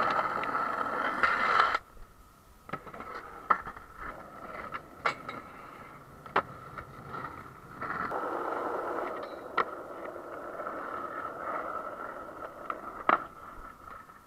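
Skateboard wheels rolling on asphalt, loudest for the first two seconds, with several sharp clacks of the board striking the ground.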